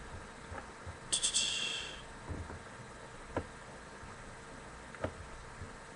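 A few scattered soft computer-mouse clicks, with a brief hiss about a second in.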